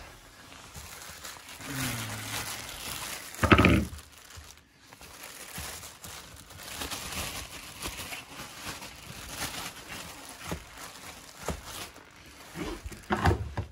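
Clear plastic bag crinkling and rustling as a new air filter is unwrapped by hand, with a brief louder sound about three and a half seconds in.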